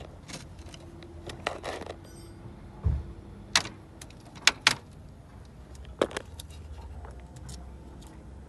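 Sharp plastic clicks and knocks as the ambient temperature sensor's mounting clip is pushed into place and handled, with one dull thump just before the loudest clicks.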